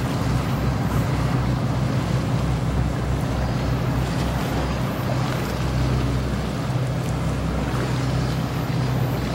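Boat engine running steadily underway, a low even drone, with water rushing past the hull and wind.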